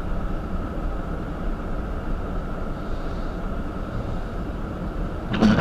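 Steady low rumble of a car running. About five seconds in, a sudden louder clatter cuts in over it.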